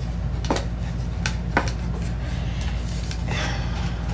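A few light clicks and knocks, then a brief rubbing rustle about three seconds in, as a small book stand is handled, over a steady low hum.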